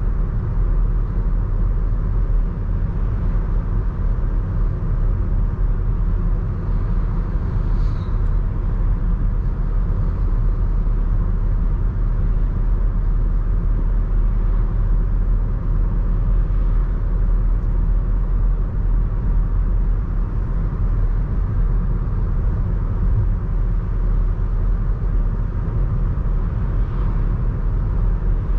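Audi A1 1.6 TDI four-cylinder diesel car driving at a steady pace: a constant low rumble of engine and road noise that neither rises nor falls.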